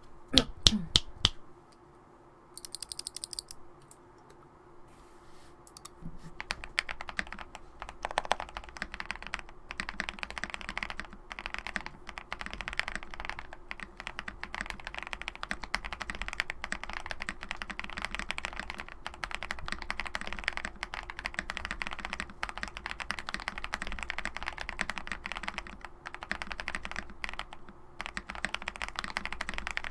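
Typing on a mechanical keyboard with lubed Akko POM Brown tactile switches. After a few loud knocks at the start and a short lull, steady fast typing begins about six seconds in and keeps going.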